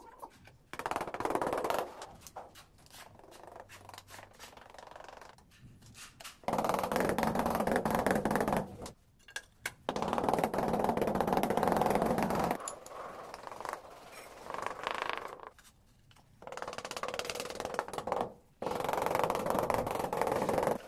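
Rubber mallet tapping rapidly on a large ceramic floor tile to bed it into the mortar. The taps come in several quick runs of a second or two each, with short pauses between.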